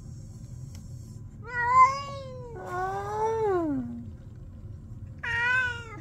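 Ginger tabby cat meowing three times. The second call is long and slides down in pitch at its end. A steady low hum runs underneath.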